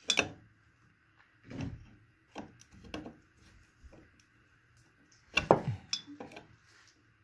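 Long screwdriver clinking and scraping against a bolt and the metal mounting bracket of a ceiling fan motor as the bolt is turned out: a string of short knocks and clinks, the loudest about five and a half seconds in.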